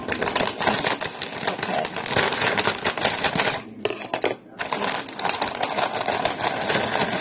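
Plastic tortilla-chip bag crinkling as it is handled and tipped, with chips rattling and clattering into a glass pie dish. The crackling is dense and continuous, with a short break a little past halfway.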